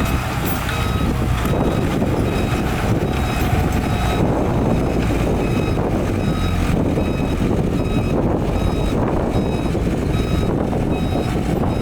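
Back-up alarm of a heavy earthmoving vehicle beeping steadily, about twice a second, as it reverses, over the low rumble of its diesel engine.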